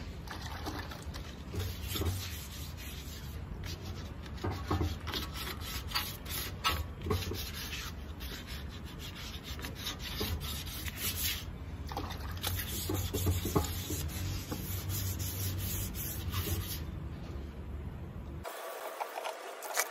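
Sandpaper rubbing back and forth over the painted fuel tank of a Hero Honda Splendor motorcycle, wet-sanding the base coat smooth in a run of short scratchy strokes. The sound changes abruptly near the end.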